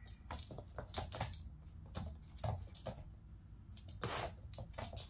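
Kittens' paws scampering and scuffling on a wooden floor and foam mats: an irregular run of light taps and thumps, with a longer scuffle about four seconds in.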